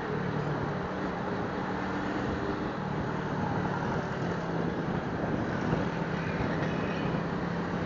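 Suzuki Smash 115 motorcycle's single-cylinder four-stroke engine running at a steady cruise, with a steady rush of road noise over it.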